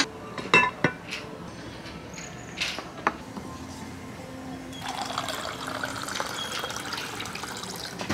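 A few sharp clinks of a glass cloche lid and metal tongs. Then, about five seconds in, water runs from the tap of a glass drink dispenser into a paper cup in a steady stream that lasts about three seconds.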